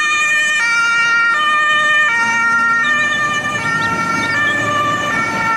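German fire engine's two-tone siren (Martinshorn), alternating between a high and a low note about every three-quarters of a second, with a low engine rumble underneath, on an MAN turntable-ladder truck.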